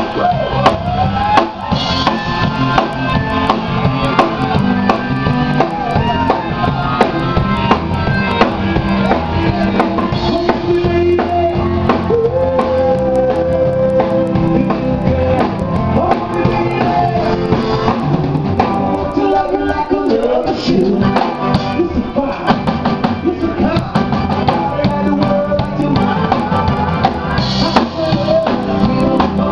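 Music with a drum kit and singing, loud and continuous with a steady beat.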